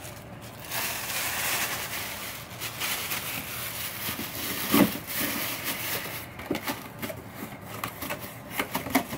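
Crinkling of a plastic bag and packing material as a bagged speaker is handled inside a cardboard box, with scattered light clicks and one louder knock about halfway through.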